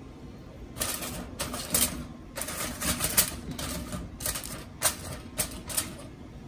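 Crumpled aluminium foil, used as a pot cover, crinkling as it is handled: a string of irregular crackles starting about a second in.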